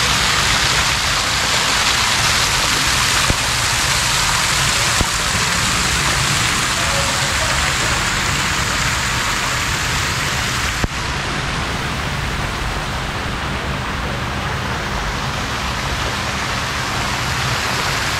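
Steady rush of falling, splashing water from the pools' water features. About eleven seconds in a sharp click is followed by a slightly quieter, duller rush.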